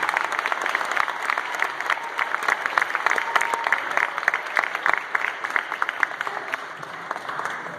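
Audience applauding: dense clapping that thins out and gets quieter near the end.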